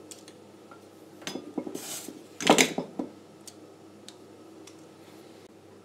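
Small metal tools being handled on a workbench: a few clicks, a short scrape, and about two and a half seconds in a brief metallic clatter, the loudest sound, followed by a few faint ticks.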